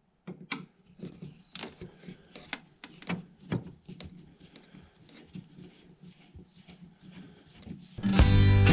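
Irregular clicks, taps and light knocks, as of hands working on something, over a faint low hum. Strummed acoustic guitar music starts near the end.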